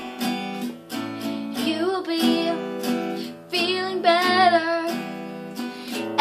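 Guitar strummed in a steady rhythm of chords, about two strums a second, with a child's voice singing a wordless melody over it twice in the middle.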